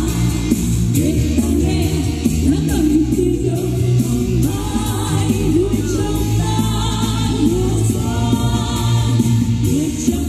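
A woman singing a Vietnamese song into a microphone, with choir-like backing voices over a full musical accompaniment.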